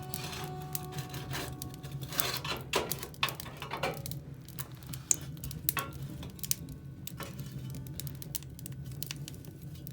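Irregular sharp clicks and light clattering, several a second, over a steady low hum.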